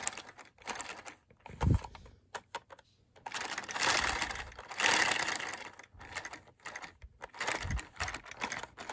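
LEGO two-cylinder boxer engine running on vacuum suction: a fast, even clatter of plastic parts like a sewing machine, swelling into a louder, hissier stretch around four to five seconds in. Two short low thumps come about a second and a half in and again near the end.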